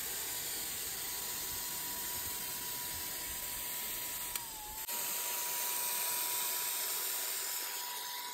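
Handheld electric paint sprayer running and spraying: a steady whine from its motor over a constant rush of air, the pitch dipping briefly about halfway through.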